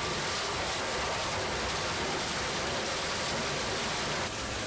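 Steady rushing hiss of water spraying at a coal-mining machine at the coal face, over low machine running noise. The sound changes abruptly and thins near the end.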